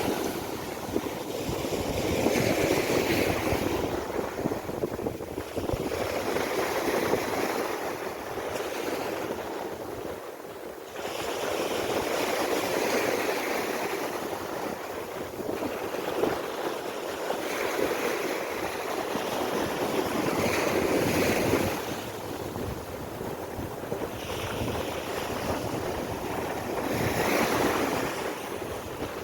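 Sea waves washing onto a sandy beach, the surf swelling and easing every few seconds, with wind on the microphone.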